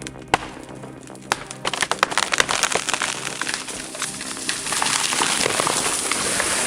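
Background music under a large tree coming down: a few sharp cracks, then a rapid run of snapping and crackling as branches break, building into a loud rushing crash through the foliage.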